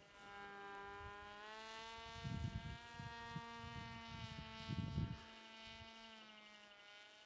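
Motor and propeller of a small flying-wing UAV buzzing steadily overhead, its pitch rising slightly and then easing back down. Wind gusts on the microphone twice, about two seconds in and again near five seconds.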